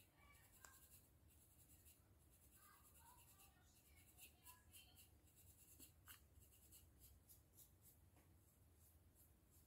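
Faint, irregular scratching strokes on a dry, flaky scalp with dandruff.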